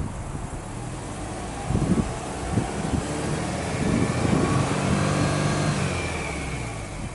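Exhaust of a Subaru Legacy B4 2.0GT spec.B's turbocharged 2.0-litre boxer four, revved with no load at the dual tailpipes. Engine speed rises through the middle, holds, then falls back toward idle near the end.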